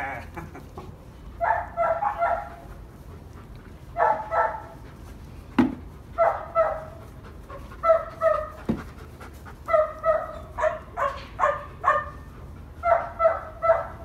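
Dog barking excitedly in quick bursts of three or four short barks, a burst every second or two.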